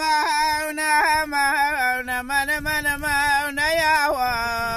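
A man singing a Kurdish song unaccompanied, in one continuous line with wavering, ornamented pitch slides. He settles into a long held note near the end.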